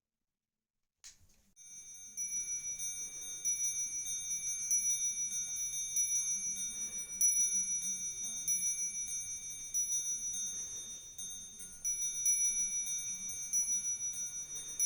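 High, ringing bell-like chimes, struck again and again every second or so and left to ring on, starting about a second and a half in.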